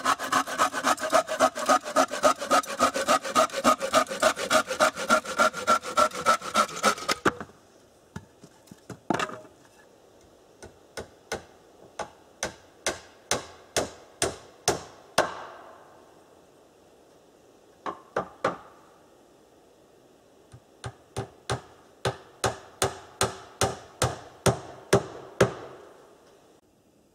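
Hand saw cutting a wooden board in fast, even strokes, about four a second, stopping after about seven seconds. Then a hammer driving nails into the boards in three runs of quick blows with pauses between, the longest run near the end.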